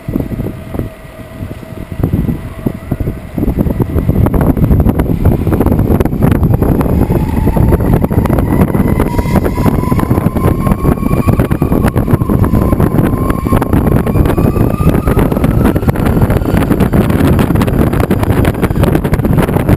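Wheels rolling and rattling over paving, with wind buffeting the microphone during a ride on an electric mountainboard; the noise gets louder about three seconds in and stays loud. A thin whine slowly rises in pitch through the middle.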